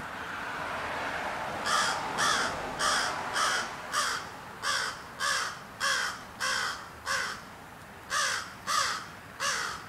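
Crow cawing in a rapid series of harsh caws, about two a second, with a short break near the end before the calling resumes.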